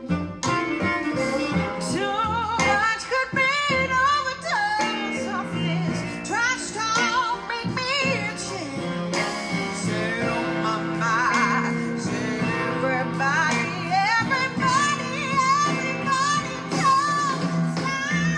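Pop song with a singing voice over guitar and a steady beat.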